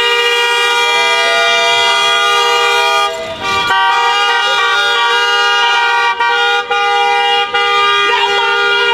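Car horn held down in one long, steady blare, with a short break about three seconds in.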